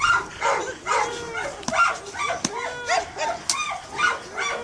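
Dogs barking and yelping in quick succession, short calls that rise and fall in pitch, with sharp snaps between them. This is the excited barking of a dog roused during protection bite work.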